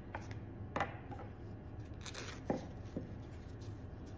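Hands handling flower stems on a wooden workbench: quiet rustling with a few light clicks and taps, and a brief scratchy rustle about two seconds in.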